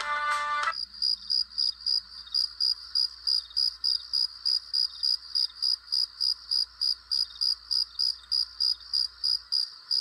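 Plucked, ringtone-like music ends under a second in, giving way to steady, high-pitched, cricket-like chirping at about four chirps a second.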